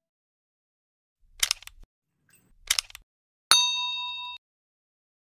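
Subscribe-reminder sound effect: two short noisy bursts, then a bright bell ding that rings for under a second and cuts off abruptly.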